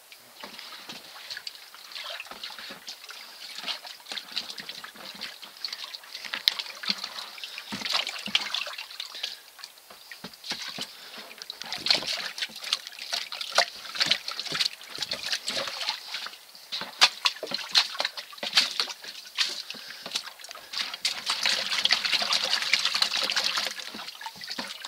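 Water splashing, dripping and trickling as a wet sluice-box carpet is rinsed and shaken out over a plastic tub of water, washing the gold concentrates off it. Near the end there is a louder, steadier run of water pouring off the carpet.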